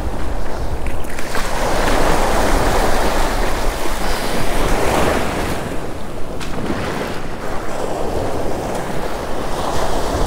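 Shallow surf washing in and out around a sand flea rake drawn through the wash, swelling and ebbing several times. Wind buffets the microphone.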